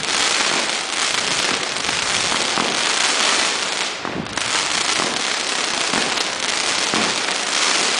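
Fireworks going off without a break: a dense crackling full of sharp pops, easing briefly about four seconds in.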